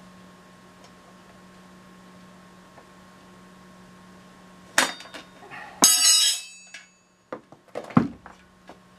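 Tire levers and the wheel rim knocking and clinking as a motorcycle tire is levered off its rim: a sharp knock about five seconds in, a bright metallic clatter just after it, and another knock near the end. A steady low hum runs underneath.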